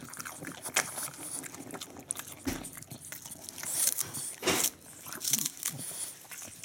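French bulldog biting and chewing a crisp napa cabbage stalk held in a hand, a run of irregular wet crunches, the loudest about four and a half seconds in.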